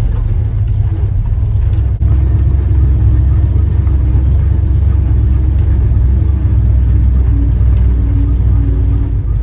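Jeep's engine and drivetrain running steadily with a low rumble as it drives a rocky off-road trail, with a few faint knocks.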